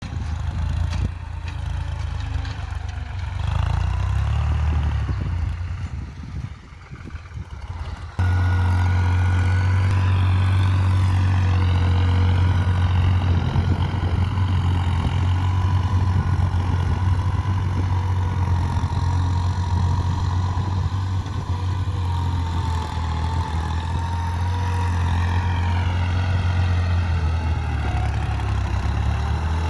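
New Holland TT55 tractor's diesel engine running steadily as it pulls a tillage implement through the soil: a low drone with a faint wavering whine above it. It sounds weaker and more distant for the first several seconds, then suddenly becomes louder and closer about eight seconds in.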